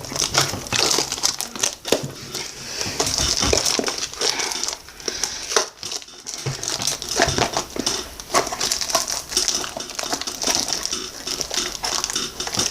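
Packaging crinkling and rustling, with many small clicks and scrapes, as a cardboard trading-card blaster box is opened by hand. There is a brief pause about six seconds in.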